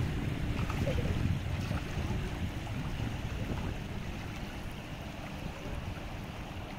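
Small waves lapping in the shallows of a pebbly lakeshore, with wind rumbling on the microphone. The sound eases off slightly toward the end.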